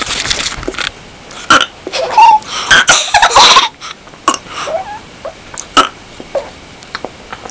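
A person burping repeatedly: a string of loud burps in the first four seconds or so, then only short, quieter sounds.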